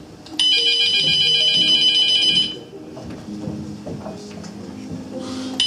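A phone's electronic ringtone rings loudly for about two seconds just after the start, then starts again at the very end, waking a sleeper. Soft upright piano notes play underneath.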